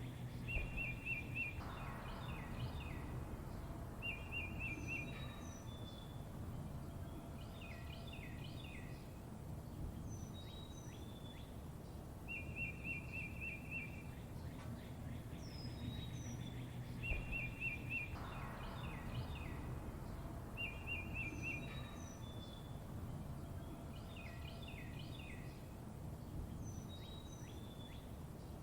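Several songbirds chirping: short rapid trills, high down-slurred whistles and clusters of quick notes, over a steady low rumble. The same sequence of calls repeats about every sixteen seconds.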